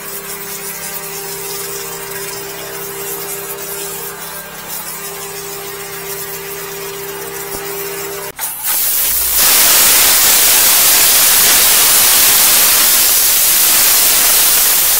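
A steady machine hum, then about eight seconds in a loud, even hiss takes over as a high-pressure drain-jetter nozzle sprays water into a drain pit.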